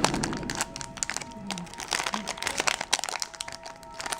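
Foil booster-pack wrapper crinkling and crackling as it is worked open by hand, with a faint steady tone underneath.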